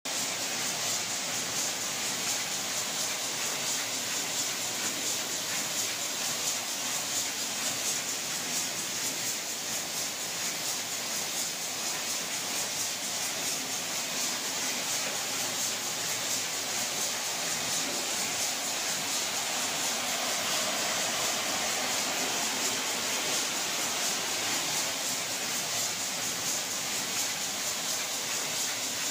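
Rotary (turntable-type) egg-breaking machine running: a steady mechanical hiss with dense fast ticking from its moving parts.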